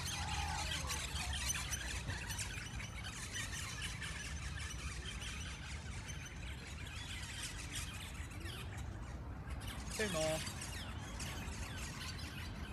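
Outdoor background noise with a steady low rumble and hiss, and a brief rising squeal about ten seconds in.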